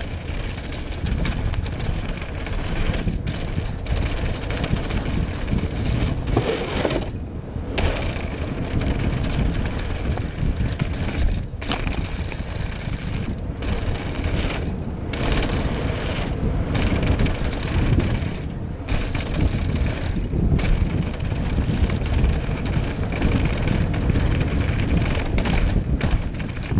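Raw helmet-camera audio of a chainless downhill mountain bike ridden fast down a dirt trail: tyres rumbling over the ground and the bike rattling over bumps, with wind on the microphone. The noise is loud and continuous, with a few brief drops.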